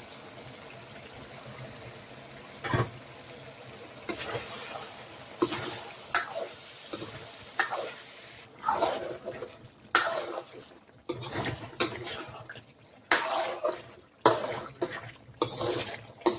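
Water running with a steady hiss while kitchenware knocks and clatters irregularly, the clatter getting busier from about four seconds in.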